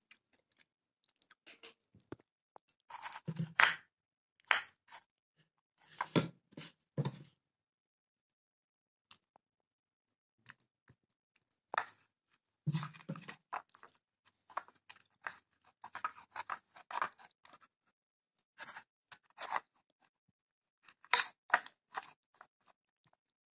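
Hand rubbing and crushing spices and garlic into a root in a plate, with scraping against the plate. It comes as irregular bursts of crunching and scraping, the loudest a few seconds in.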